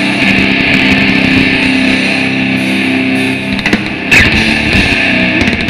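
Live death metal band with distorted electric guitars holding a sustained chord at the close of the song, and a loud hit about four seconds in.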